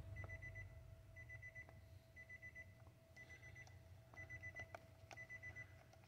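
Faint electronic beeping: quick runs of about five short high beeps, repeating about once a second, over a faint steady hum, with a few light clicks.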